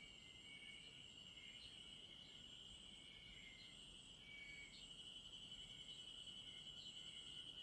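Faint chorus of singing insects: one continuous high-pitched trill, which gets a little louder about halfway through, over a higher wavering buzz, with short chirps from other insects repeating roughly once a second.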